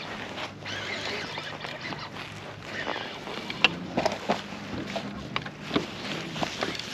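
Small waves lapping and sloshing against a plastic kayak hull, with a few sharp clicks and knocks from about halfway through as a baitcasting reel is worked.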